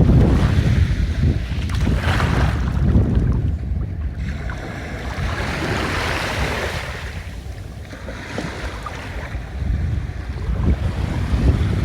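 Small ocean waves washing onto the beach in a few slow surges, with wind rumbling on the microphone, heaviest at the start and again near the end.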